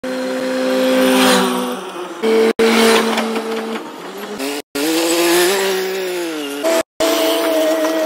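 Engine sounds edited together as a run of short clips: steady high-pitched engine tones and a rise-and-fall revving glide, cut off abruptly three times.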